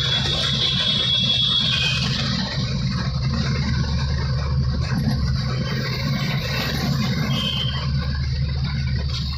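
Car cabin noise while driving: the engine and tyres make a steady low rumble. A thin high tone sinks slightly over the first two seconds, and a brief one sounds again near the end.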